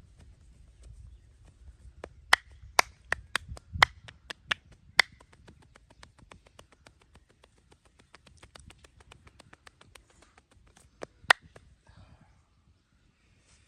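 Sharp cracks from a cracking massage: a quick run of about seven loud snaps between two and five seconds in, and one more loud crack near the end, over a train of faint rhythmic ticks.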